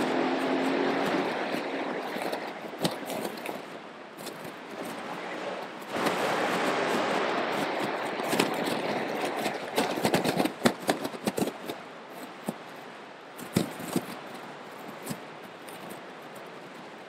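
Vehicles driving through a flooded street, their tyres pushing through and spraying floodwater in a steady rush. In the second half a bicycle is pedalled through the water, with many short, sharp splashes.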